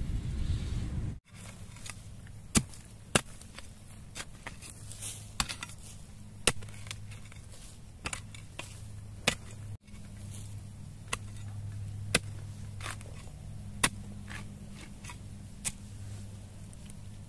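A digging tool chopping into soil and roots around a bamboo shoot: sharp separate strikes, irregular, roughly one a second, over a low steady hum. A brief low rumble cuts off about a second in.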